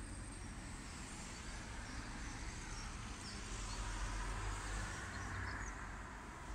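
Outdoor street ambience: a steady low rumble of distant traffic with a few faint bird chirps in the middle.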